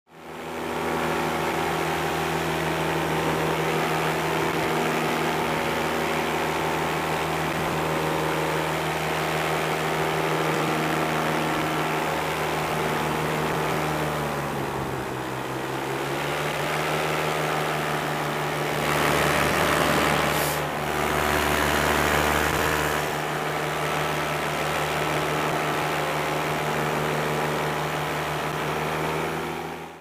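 Miniplane Top 80 paramotor's single-cylinder two-stroke engine and propeller running steadily in flight. Its speed dips briefly about halfway through and then recovers; a few seconds later a louder rushing noise rises over the engine for about four seconds.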